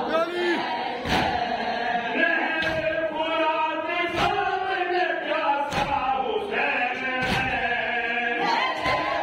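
Men's voices chanting an Urdu noha (a mourning lament) in unison. A sharp thump falls about every one and a half seconds, the beat of matam (chest-beating) keeping time with the lament.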